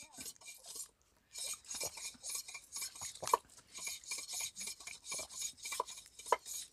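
Ice clinking and scraping in a handheld plastic cup of sugarcane juice as the cup is tipped and moved: faint, irregular small taps, a few a second.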